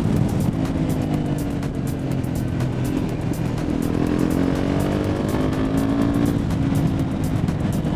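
KTM motorcycle engine running under way, its pitch climbing steadily through the middle and dropping back about six seconds in, as on an upshift.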